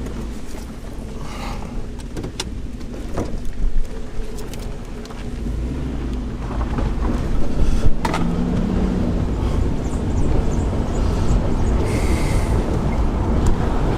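Car driving along a road: a steady low engine and tyre rumble with a few sharp knocks and rattles, getting louder about six seconds in.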